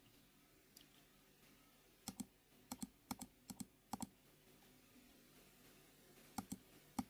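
Faint, sharp clicks on a computer, mostly in quick pairs: a cluster of about five pairs two to four seconds in, then a few more near the end. They go with stepping through moves and variations on an on-screen Go board.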